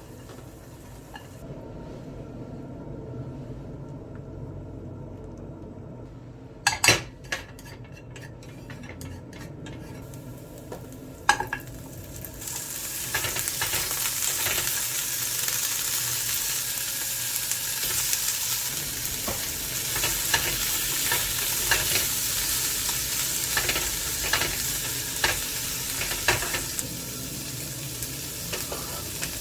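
Food frying in a hot pan: after a couple of sharp knocks, loud sizzling starts about twelve seconds in and continues, with a utensil stirring and scraping in the pan.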